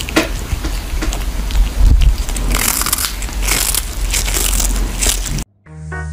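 A kitten chewing a small fish, with rapid crunching and crackling bites. The chewing cuts off suddenly near the end, and music begins.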